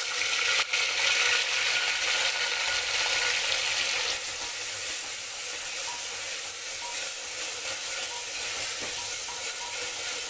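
Coarsely ground raw onion sizzling and frying in hot oil in a pressure cooker, stirred with a spatula, the sizzle strongest in the first few seconds after it goes in. A sharp tap sounds about half a second in.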